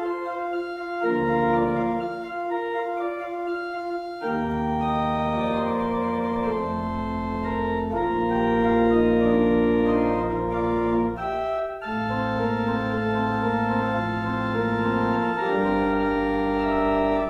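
Organ music: slow, sustained chords that change every few seconds over deep held bass notes.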